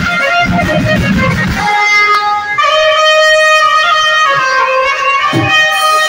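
Wedding band music: drums beating, dropping out a couple of seconds in while a melody instrument holds a long note, then drums coming back near the end.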